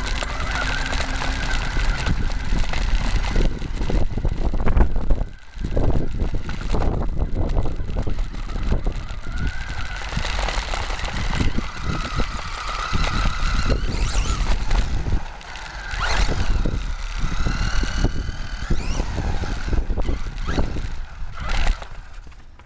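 WLtoys A959 1/18-scale RC car's electric motor whining up and down with the throttle, over a steady rattle and crunch of its tyres and chassis on rough ground, heard from a camera riding on the car. The motor briefly lets off twice, about five seconds in and again about fifteen seconds in.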